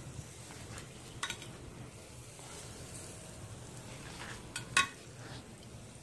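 Long metal tongs clinking against shrimp skewers and the grate of a hot charcoal grill as the skewers are lifted off, over faint sizzling. There is one clink about a second in, and a louder double clink a little before the end.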